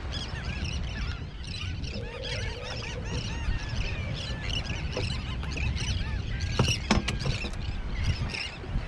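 Many birds calling at once, a constant chatter of short, overlapping chirping calls over a low rumble. A couple of sharp knocks come about seven seconds in.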